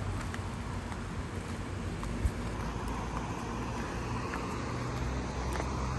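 Roadside street ambience: a steady low rumble of road traffic, with one sharp knock a little after two seconds in.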